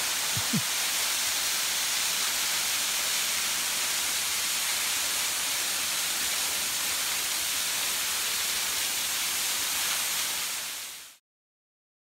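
Steady rushing hiss of a straight-drop waterfall splashing onto the rocks of its pool, with a small knock just after the start. The sound fades out quickly to silence about eleven seconds in.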